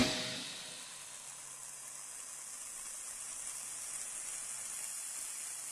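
The last of a music track dies away in the first half second, leaving a steady faint hiss with a faint low hum underneath.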